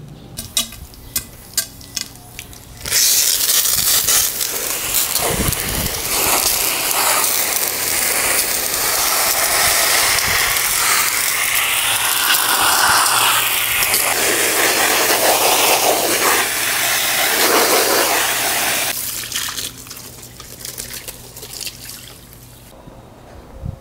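A few sharp clicks, then a garden hose spraying water through a reusable oiled air filter, rinsing the cleaner out from the inside. The spray starts suddenly about three seconds in, runs steadily for some sixteen seconds and stops.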